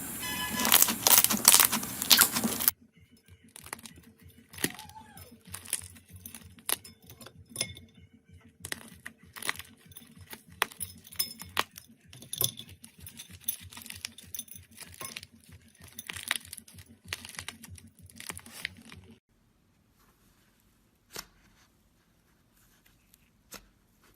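Slime being handled close to the microphone. A couple of seconds of dense crunchy crackling give way to a long run of sticky clicks and pops. After a cut near the end only a few faint pops remain.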